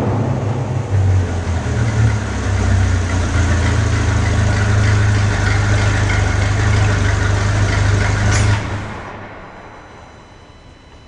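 Ferrari 458 Speciale's 4.5-litre V8, breathing through an Fi Exhaust catback valvetronic muffler with dual tips, dropping from a rev into a steady low idle. About eight and a half seconds in, the engine note cuts off abruptly and the remaining sound fades away.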